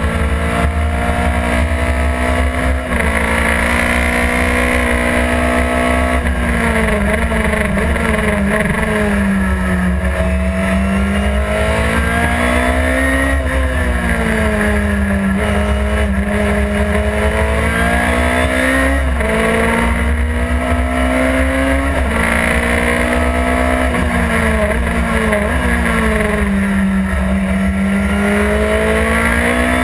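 Chevron B16 race car's engine at racing speed, heard from inside the cockpit: the note climbs steadily under acceleration, jumps down at gear changes and sags when braking for corners, over a steady rumble.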